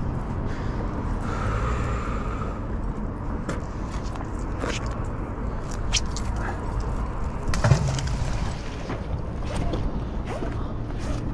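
Steady low rumble with scattered clicks and knocks as a magnet-fishing rope and magnet are handled; the sharpest knock comes about two-thirds of the way through.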